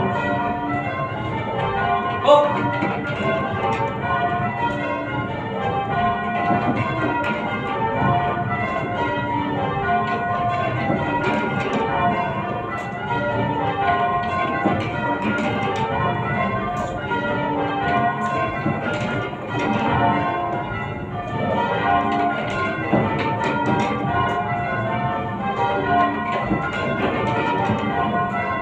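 A ring of eight church bells being change-rung: a steady, unbroken stream of overlapping bell strikes, with one sharper, louder knock about two seconds in.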